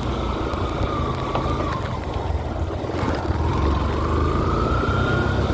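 Motorcycle running with a low rumble and a thin whine that dips about a second and a half in, fades out, then climbs steadily again over the last couple of seconds.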